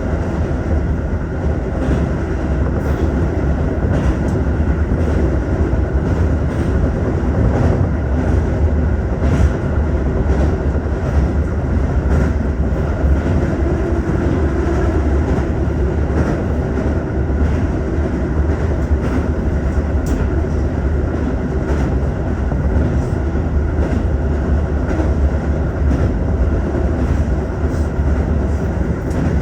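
Tokyo Metro 15000 series electric train running at speed, heard from inside the front car: a steady low rumble of wheels on rail with occasional faint clicks.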